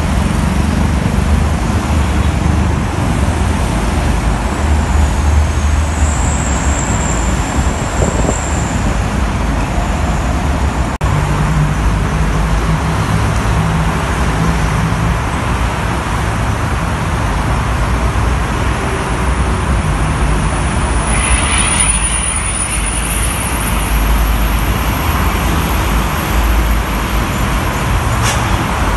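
Dense multi-lane expressway traffic, heavy trucks, a bus and cars passing in a steady roar with a low engine rumble, tyres hissing on wet asphalt. A thin high squeal rises above it twice, about a quarter in and again about two-thirds in.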